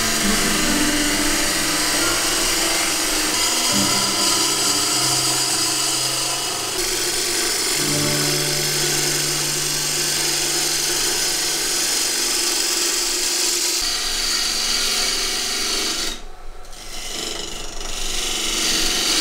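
Wood lathe spinning a movingui bowl blank while a gouge cuts into it, making a steady, rough, rasping hiss of shavings being peeled off over the hum of the lathe. The cutting noise drops away briefly near the end, then resumes.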